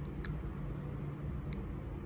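Steady low background rumble with two faint short clicks, one about a quarter second in and one about a second and a half in.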